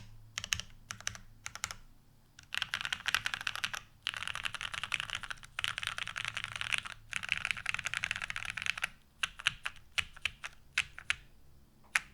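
Typing on a mechanical keyboard with lubed vintage Cherry MX Black linear switches on an aluminum plate and Cherry G81-3100SAV keycaps. A few separate keystrokes, then four runs of fast typing, then slower single presses and one last keystroke near the end.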